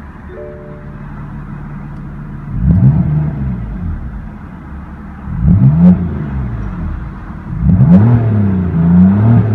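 2016 BMW M3's 3.0-litre twin-turbo inline-six idling, then revved three times, each rev rising and falling back to idle. The third is a double blip.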